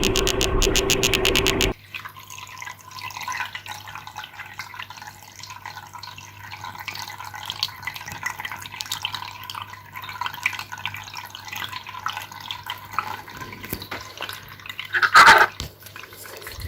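A loud, rapid pulsing, about ten pulses a second, stops abruptly under two seconds in. Then water drips with scattered faint clicks, and a single louder splash comes near the end.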